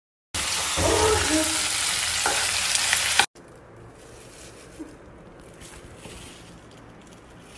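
Food sizzling in a hot frying pan: a loud, even hiss for about three seconds. After a sudden cut, fainter pan noise with a few light ticks follows while spinach is stirred with tongs.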